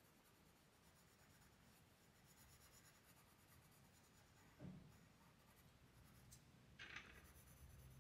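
Faint scratching of a soft 6B graphite pencil on paper as dark tones are shaded in, with a soft thump about halfway through and a short, sharper scratch near the end.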